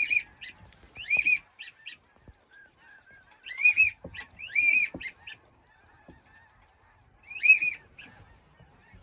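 Geese honking: short, high, arched calls in about five separate bursts, the loudest near the end.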